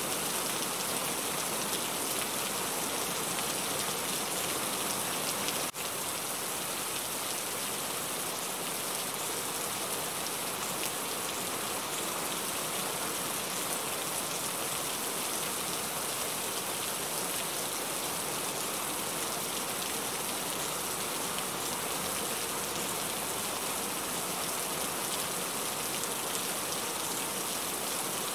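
Heavy rain falling steadily, an even hiss with no let-up. There is a brief click and slight dip in loudness about six seconds in.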